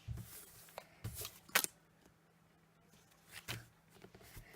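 Card and paper being handled on a crafting desk: a few sharp taps and light rustles, the loudest about one and a half seconds in.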